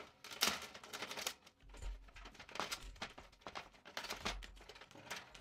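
Faint handling noise: scattered small clicks, taps and rustles of power cables being pulled through a grommet hole in a metal cabinet panel.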